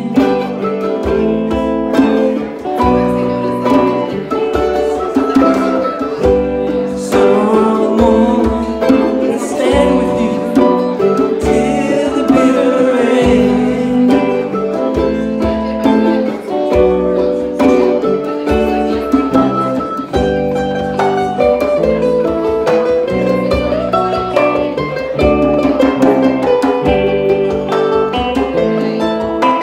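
A small band playing a song live on hollow-body electric guitar, mandolin and hand drum, with steady strummed chords and regular drum strikes.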